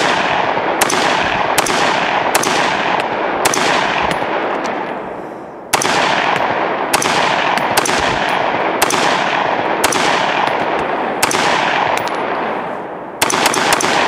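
Loud rapid semi-automatic fire from a 5.56 rifle with a Lantac Dragon muzzle brake, shots coming about two-thirds of a second apart, each with a long echo tail. The string pauses briefly about four seconds in, resumes, and ends with a quicker cluster of shots near the end.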